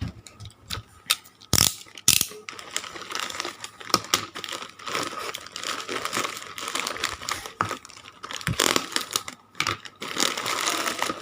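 Hands opening a parcel: packaging crinkling and rustling, with many scattered clicks and taps.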